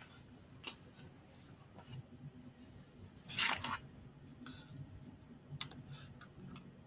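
A quiet pause in speech, with a short breathy hiss about three seconds in and a few faint clicks near the end.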